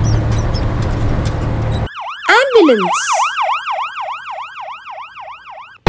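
Heavy dump truck engine rumbling steadily, then after about two seconds a sudden cut to an ambulance siren in a fast yelp. The siren rises and falls about four times a second and fades away.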